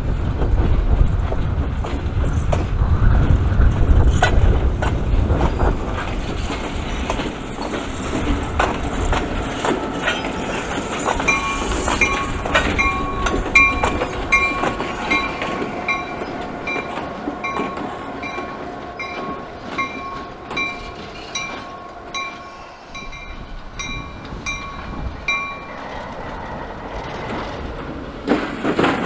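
Diesel locomotive rolling slowly past, its engine rumbling heavily in the first few seconds, with wheels clicking over the rail joints. From about a third of the way in until shortly before the end, a locomotive bell rings in a steady rhythm, a little faster than once a second.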